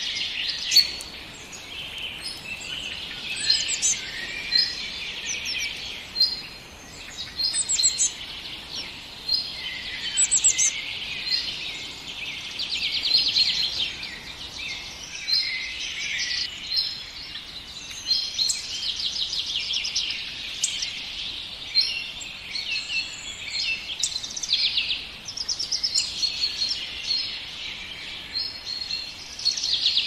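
Several songbirds singing together in a dense, overlapping chorus of chirps, short phrases and fast trills.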